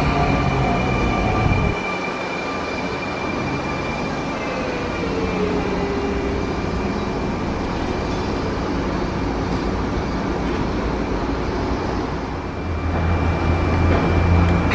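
Electric trains at a station platform. For about the first two seconds, a navy-blue Sotetsu train moves past the level crossing. After that, a Sotetsu 9000 series train stands at the platform with its equipment running steadily and a few thin tones over it. A low hum grows louder near the end.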